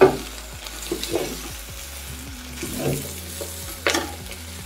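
Wooden spatula stirring chicken stew in a pot over the heat, the food sizzling, with a few scrapes and sharp knocks of the spatula against the pot, the loudest right at the start and another about four seconds in.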